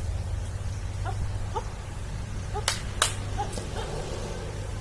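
Two sharp cracks about a third of a second apart, a little past the middle, over a steady low rumble.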